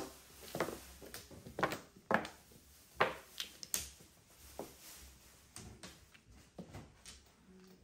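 Mahjong tiles clacking on the table: a string of sharp, irregular clicks about one or two a second as tiles are drawn, set down and discarded during play.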